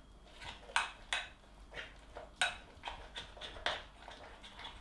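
A spoon scraping and clinking against a bowl as thick yogurt and protein powder are stirred together, in quick repeated strokes of about two to three a second.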